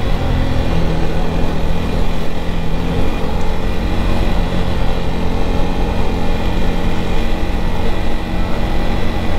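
KTM Duke 250 motorcycle's single-cylinder engine running steadily while riding, with wind rush over the helmet.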